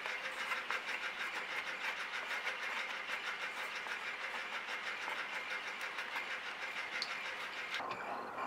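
Pen scratching across paper in rapid, evenly repeated strokes while drawing lines. Near the end it cuts off suddenly and gives way to a regular high-pitched chirping.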